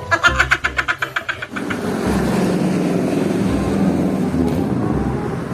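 Rhythmic percussive music for about a second and a half, cutting off, then a motor vehicle's engine running steadily.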